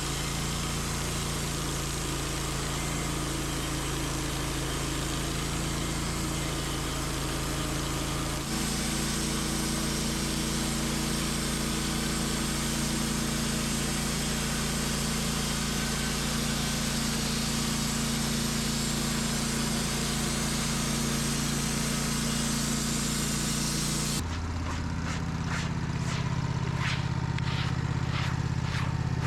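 Band sawmill's engine running steadily as the band blade cuts through a wide oak log, with a steady hiss of cutting. The blade is a thin 7-degree hardwood band that dips in such wide cuts. About 24 seconds in the cutting hiss stops suddenly, and the engine runs on with a rapid clicking.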